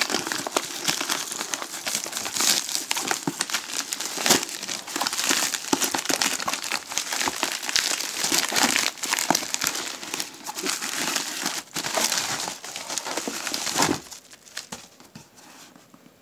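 Plastic packing wrap crinkling and crackling as it is handled and pulled out of a cardboard shipping box, dying away near the end.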